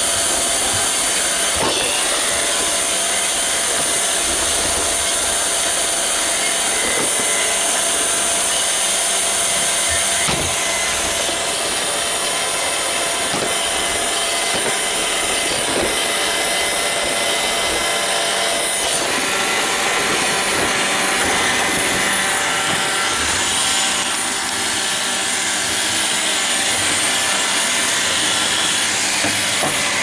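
Roomba robot vacuum running, heard from on top of it: a steady whir of its vacuum motor and brushes, with a few short knocks.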